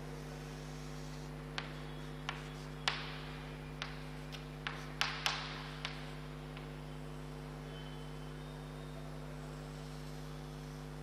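Chalk drawing lines on a blackboard: about nine sharp taps and short scrapes in the first six seconds, then none. A steady electrical mains hum runs underneath throughout.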